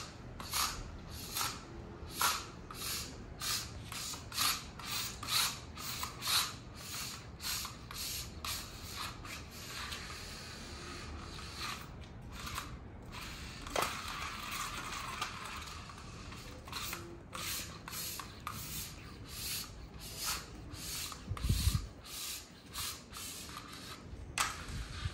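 Diabolo string rubbing on the spinning diabolo's axle in regular zips about twice a second as the spool is whipped to keep it spinning, with a steadier stretch of whirring partway through. Two low thumps come near the end.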